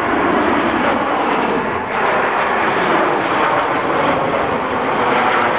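Jet noise from a formation of Red Arrows BAE Hawk T1 jet trainers flying a display roll, a steady, loud rushing sound that dips briefly about two seconds in.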